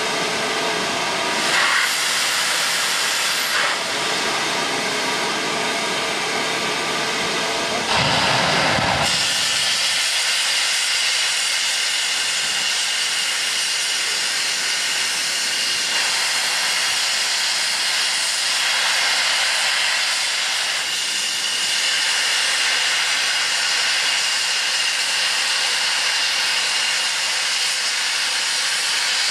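Steam locomotive standing at a platform, letting off steam in a loud, steady hiss. The hiss swells briefly about two seconds in and again, more strongly, about eight seconds in.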